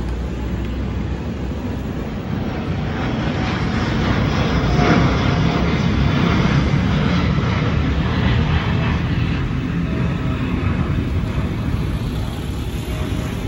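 Boeing 787-9 Dreamliner climbing out overhead just after takeoff, its jet engines a loud, deep rumble that swells to a peak about five seconds in and then slowly fades.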